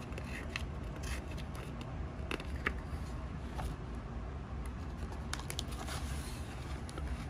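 Paper pages of a hardcover picture book being turned by hand: faint rustling and scattered soft clicks over a low steady hum.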